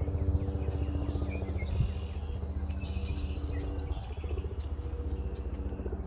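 Small birds chirping intermittently over a steady low hum and rumble.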